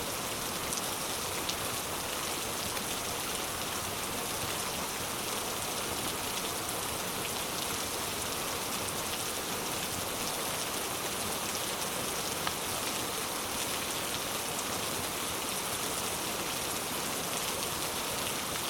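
Steady rain, an even hiss of falling drops, mixed with a few faint crackling pops from a wood fire in a fireplace.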